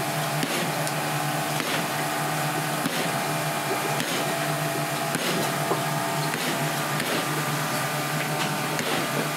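Steady hum and hiss of running kitchen machinery, with scattered light clicks and taps as a knife works through fish on a plastic cutting board.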